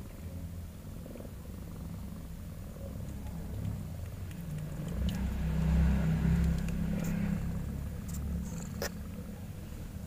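Mother cat purring steadily while her newborn kittens nurse, the purr swelling louder for a couple of seconds past the middle.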